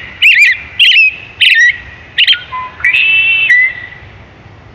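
American robin singing: a string of short, clear whistled phrases about half a second apart, with a longer held phrase near the end.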